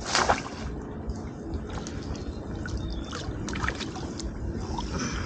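Water splashing: one loud splash right at the start, then small scattered splashes and drips over a steady low rumble.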